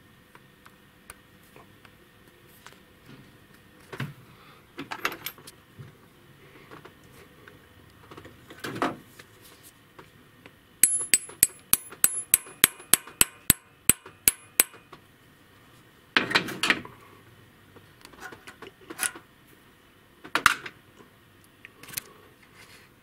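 Light, ringing hammer taps on metal, about four a second for some four seconds, seating a new valve stem seal onto the valve guide. Scattered clinks and scrapes of tools on the cylinder head come before and after.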